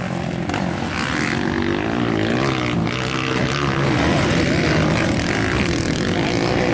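Several motocross bike engines running and revving on the track, their pitch rising and falling as the riders work the throttle.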